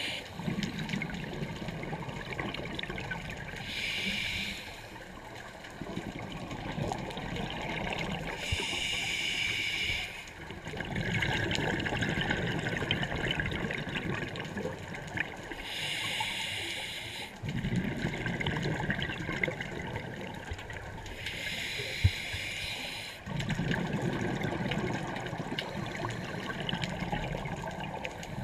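Scuba diver breathing through a regulator underwater: four short hissing inhalations a few seconds apart, each followed by a longer low rumble of exhaled bubbles. One sharp click sounds about three-quarters of the way through.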